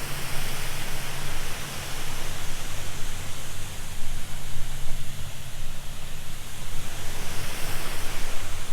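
Waterfall pouring, a steady rush of water with a low rumble underneath.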